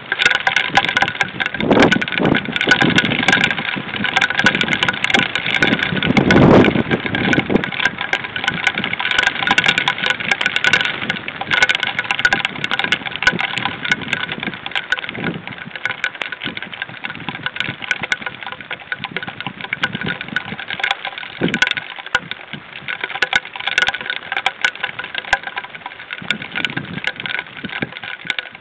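Steady heavy rain on the nest and the webcam's microphone, a constant hiss with many sharp drop clicks, and a few louder low rumbles about 2, 6 and 21 seconds in.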